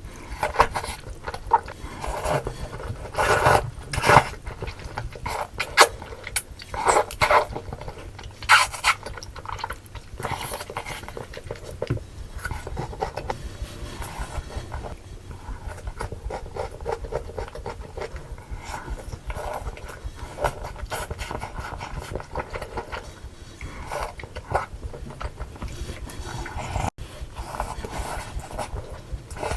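Close-miked eating of malatang noodle soup: irregular wet chewing and slurping noises, loudest in the first nine seconds or so.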